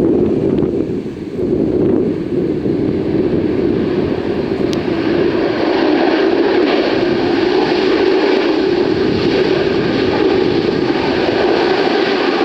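Jet airliner on approach to land, its engine noise growing louder from about five seconds in, under steady wind buffeting the microphone.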